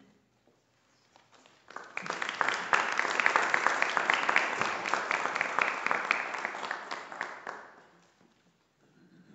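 Audience applauding: the clapping starts about two seconds in, swells quickly, then fades and dies away near the end.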